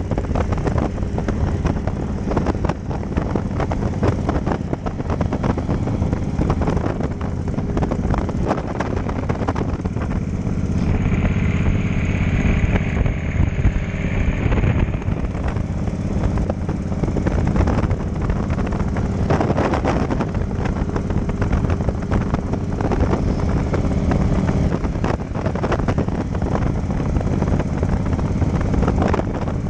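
Cruiser motorcycle running steadily at road speed, heard from the bike itself with wind and road noise. For a few seconds in the middle a high-pitched whine joins in, then fades.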